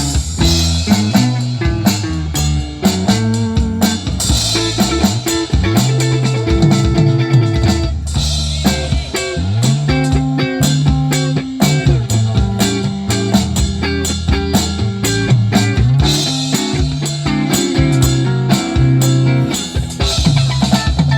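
Band music with electric guitar, bass and a drum kit playing a steady beat, heard during a sound check.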